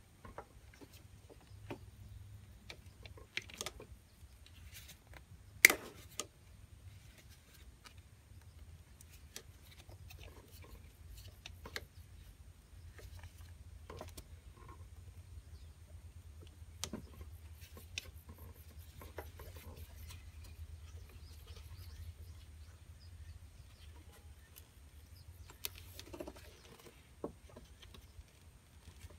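Scattered small clicks and knocks of gloved hands and tools handling a scooter carburettor, its hoses and clamps, with one sharp click about six seconds in, over a faint steady low rumble.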